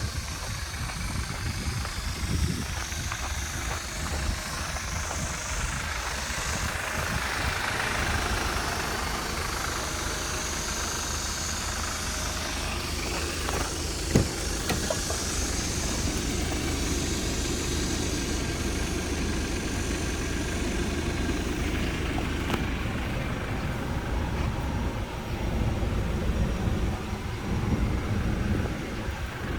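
Hyundai H1 Starex 2.5-litre turbo diesel engine idling steadily, with a single sharp click about halfway through.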